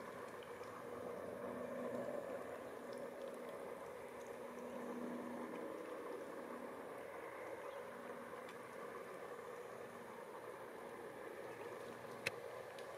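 Steady, faint background rumble with a low hum that comes and goes, and a single sharp click near the end.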